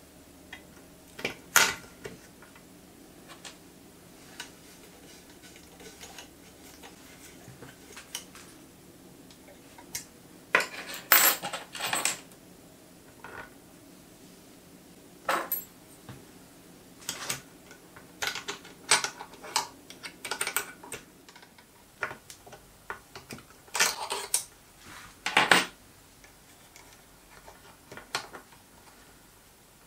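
Small metal parts on a mini lathe's power-feed cut-off stop being handled and adjusted: irregular metallic clicks and clinks in scattered clusters. A faint steady hum fades out about two-thirds of the way through.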